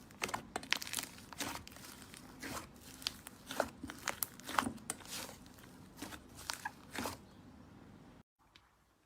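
Crunchy slime being squeezed and worked by hand, a dense run of sharp crackles and pops that stops abruptly about eight seconds in.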